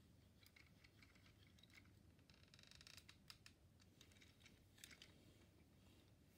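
Faint clicks and rattles of Lego plastic parts being handled and folded, with a short burst of rapid, fine ratcheting clicks about two and a half seconds in.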